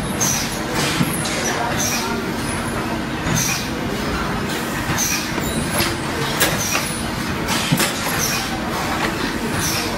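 Workshop din around a PVC welding machine: a steady hum under continuous mechanical noise, with scattered light clicks and knocks and a sharp thump at the very end.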